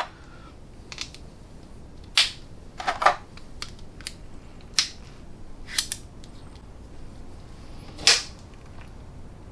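Irregular sharp clicks and clacks of small hand tools being handled, with metal sockets, ratchets and their plastic clip rails and packaging knocking together. There are about nine separate knocks, with a longer gap near the end.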